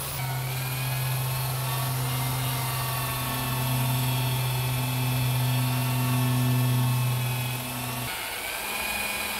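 A corded variable-speed electric drill spins a wool polishing pad against a plastic motorcycle fuel tank, buffing cleaner polish into fine sanding scratches. The motor whines steadily, and its tone changes suddenly about eight seconds in as the speed is changed.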